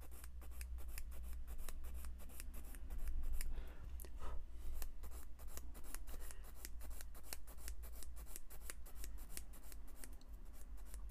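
Sanding stick rubbed in quick back-and-forth strokes against a small plastic model kit part, several rasping strokes a second, smoothing off the marks left where the part was clipped from the sprue.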